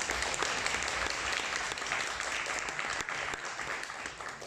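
An audience applauding, many hands clapping together steadily before it begins to die away near the end.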